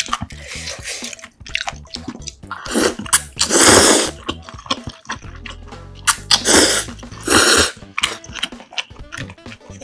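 A person slurping spicy jjamppong ramen noodles off chopsticks, two long loud slurps, the first about three seconds in and the second about six seconds in, with small wet chewing clicks between.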